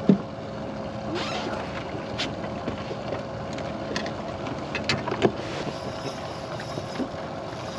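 Wind on the microphone over a steady hum aboard a bass boat, with a sharp knock at the very start and a few lighter knocks and clatters as a fish is handled on the deck.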